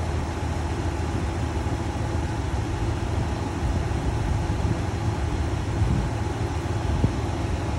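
Ram pickup's Hemi V8 idling steadily, with the engine cooling fan running unusually loud.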